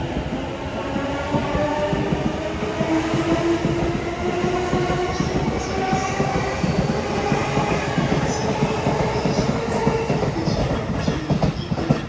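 JR East E233 series electric train accelerating away from the platform: the whine of its VVVF inverter traction motors, several tones climbing slowly in pitch, over the rumble and clatter of its wheels on the rails. The sound falls away as the last car clears near the end.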